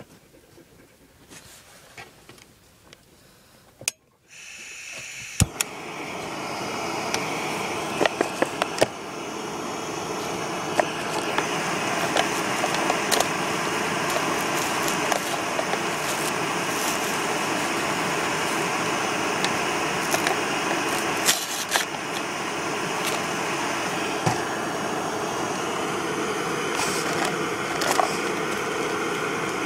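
Jetboil backpacking stove's gas burner lighting with a click about four seconds in, then burning with a steady rushing hiss and occasional small ticks as it heats water to steaming.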